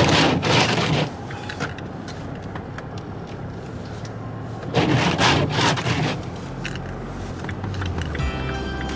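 Car running in snow, heard from inside the cabin: a low steady hum with two loud scraping sweeps about five seconds apart. Background music comes in near the end.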